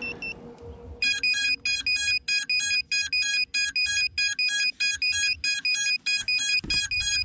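An FPV quadcopter's locator beacon beeping fast and steadily, about four high-pitched beeps a second, which signals the landed drone's position so it can be found. There are a few low thuds near the end.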